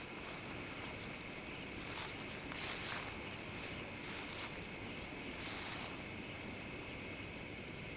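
A few slow footsteps rustling through leaf litter, spaced unevenly, over a steady chorus of night insects trilling.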